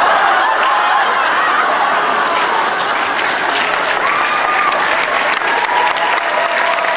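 Audience applauding loudly in a hall, with a few shouting voices mixed into the clapping. The applause bursts in suddenly and holds steady.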